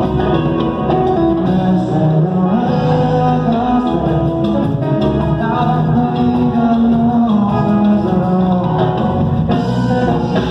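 Live cumbia band playing loudly, with a male singer over electric guitar, bass guitar and drums.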